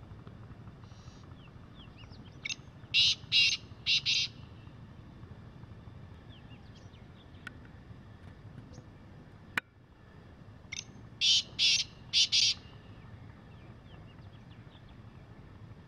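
Male black francolin calling twice, about eight seconds apart. Each call is a short note followed by three loud, harsh notes, with faint chirps of small birds in between.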